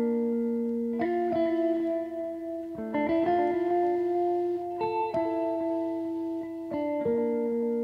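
Background music of plucked, ringing notes held as chords, the chord changing every second or two.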